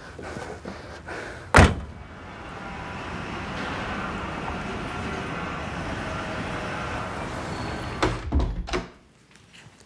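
A single loud slam, like a door shutting hard, about a second and a half in. A steady rumbling noise with faint tones then swells slowly and runs on, ending in a quick run of three or four knocks before it cuts off.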